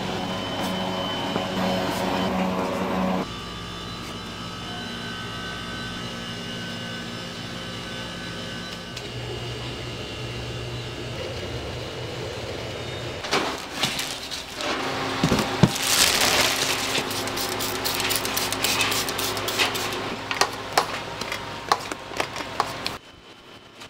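Bakery work noise: a steady machine hum, then, from about 13 seconds in, a long run of hard clattering and knocking.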